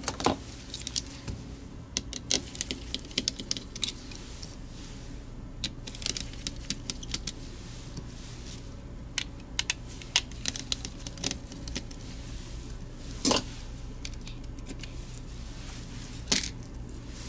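Small screws and a screwdriver clicking and tapping as a computer mouse's circuit board is unscrewed and lifted from its plastic shell. Scattered light clicks, with two louder knocks near the end.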